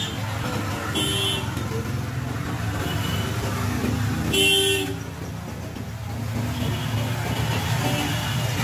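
Street traffic with a steady engine rumble and vehicle horns tooting: a short toot about a second in and a louder, longer one about four and a half seconds in.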